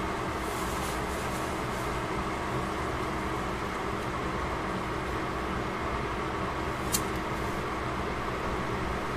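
Steady hum and hiss of a pan of cabbage and carrots cooking under a glass lid, with one sharp click about seven seconds in.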